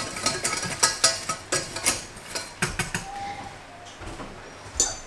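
Wire whisk clinking and scraping against a stainless steel saucepan while stirring a roux: a quick run of metallic clicks over the first two seconds, then quieter, occasional taps.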